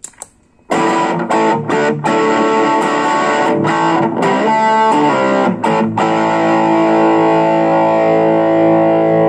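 Electric guitar played through distortion, starting about a second in: a run of short chords with sharp stops, then one chord left ringing from about six seconds in.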